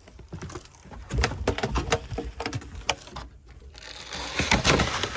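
Irregular crunching and crackling of dry chicken feed and treats, becoming a denser rustling crackle near the end.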